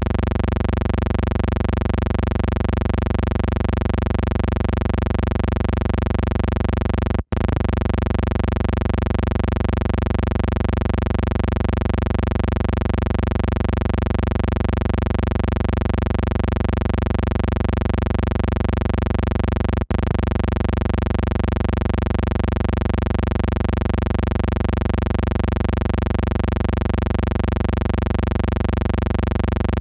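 A steady, unchanging hum with many overtones that cuts out for an instant twice, about seven seconds in and again near twenty seconds.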